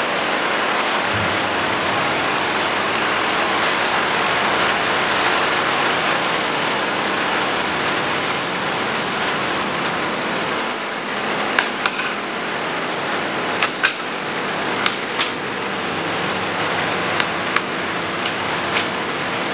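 A steady hiss, and from about halfway on a series of sharp cracks and taps as a section of bamboo is split into thin strips with a cleaver.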